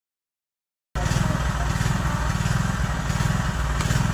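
An engine running steadily with a fast low pulsing, cutting in abruptly about a second in after silence.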